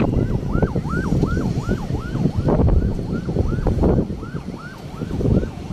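A siren yelping, its pitch sweeping up and dropping sharply about three times a second, over heavy wind rumble on the microphone.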